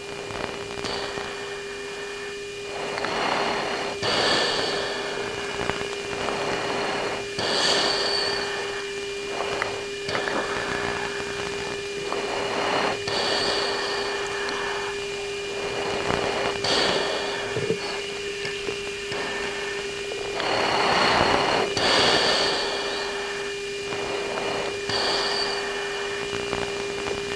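Cockpit audio of a military jet between radio calls: a steady hum under a noisy radio hiss that swells in short bursts every few seconds.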